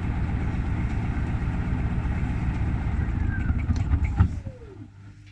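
Gorenje WaveActive washing machine spinning its drum loaded with wet snow, a loud rumble, then the spin stops about four seconds in with a knock and the motor's whine falling in pitch as the drum winds down.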